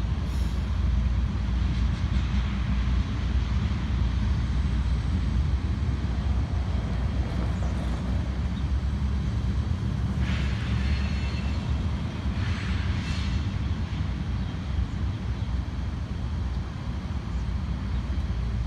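Freight train rolling past at a distance, a steady low rumble. A pickup truck drives by close at hand about ten seconds in, adding two short swells of tyre and engine noise.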